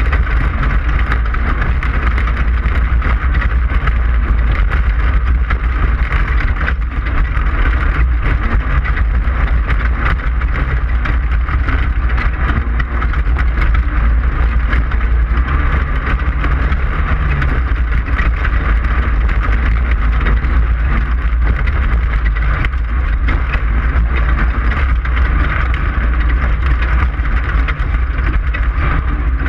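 Class 5/1600 desert race car's air-cooled 1600cc VW engine running hard and steady at racing speed, over a constant deep rumble.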